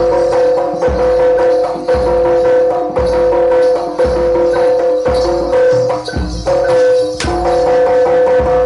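Live East Javanese jaranan dance music: a deep drum beats about once a second under a held high note and jingling, clicking percussion.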